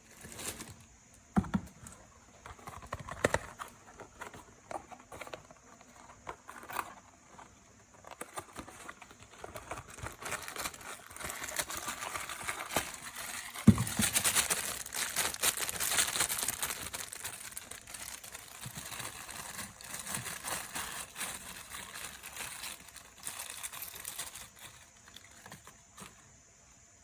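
Packaging being handled and opened: scattered clicks and taps at first, then a stretch of crinkling and tearing, with a sharp knock about halfway through.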